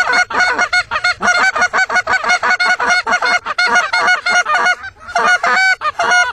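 Rapid, overlapping Canada goose honks and clucks, several a second, in a loud unbroken run with a short lull about five seconds in.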